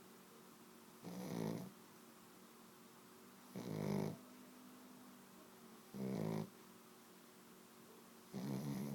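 Sleeping dog snoring: four short, buzzing snores about every two and a half seconds, each about half a second long.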